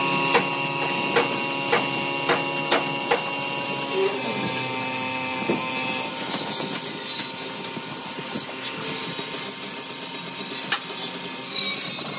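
Air spray gun hissing as it sprays paint, over the steady hum of a running motor, with a string of sharp taps in the first few seconds.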